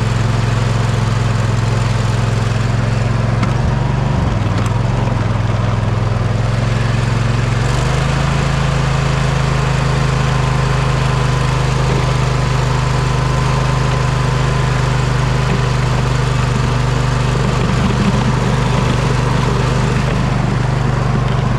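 Poulan lawn tractor's engine running steadily while plowing snow. Its note dips briefly about four seconds in, then settles slightly higher from about eight seconds on.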